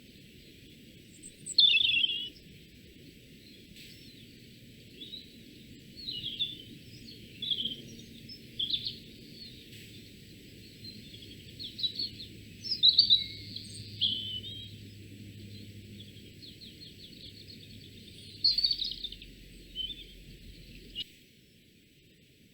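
Small forest songbirds calling and singing close to the microphone: short separate chirps and trilled phrases, loudest about two seconds in and near the middle, with a fast trill toward the end. A faint steady high-pitched whine sits under them, and the sound cuts off abruptly shortly before the end.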